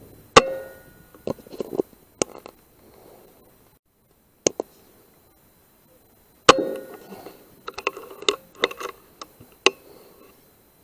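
Two shots from an Air Arms S510 .177 air rifle, each a sharp crack with a short metallic ring, one right at the start and one past the middle. Each is followed by a quick run of clicks, typical of the side lever being cycled to load the next pellet.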